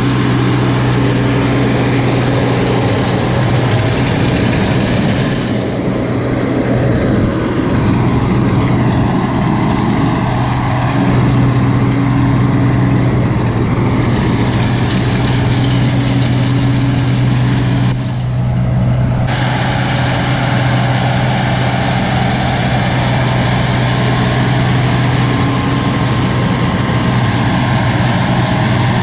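A John Deere tractor engine running steadily under load as it pulls a working round baler through windrowed hay.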